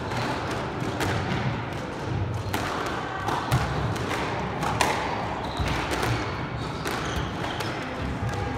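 A squash rally: the ball struck by rackets and smacking off the walls and wooden floor, a sharp knock about once a second at an irregular pace.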